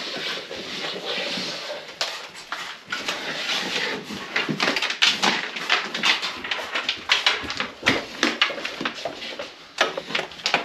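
LED strip light being pulled and fed by hand through an opening at a wall receptacle box: irregular rustling and scraping with many small clicks as the strip slides against the box and wall, busiest in the second half.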